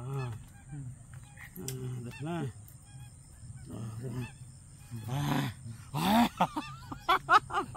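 Repeated honking bird calls, coming thick and fast in the last couple of seconds.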